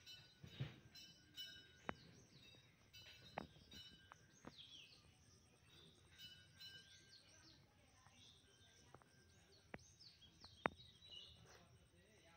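Faint chirping and twittering of small birds, with a handful of sharp clicks scattered through.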